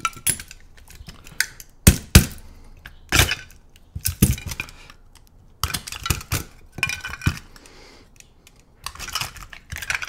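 Black plastic covers of a Master Lock Street Cuffs bike lock being pried off their steel cuff plates with a brass rod: irregular clicks, snaps and clatter of plastic against metal, a few of them sharp.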